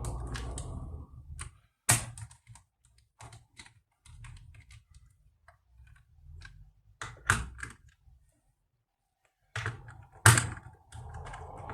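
Scattered clicks and knocks of hands working on a laptop's plastic case with a screwdriver and small screws, with gaps between them. The loudest knocks come about 2, 7 and 10 seconds in.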